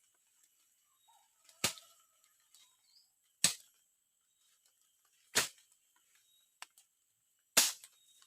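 Four sharp strikes, about two seconds apart, each ringing briefly.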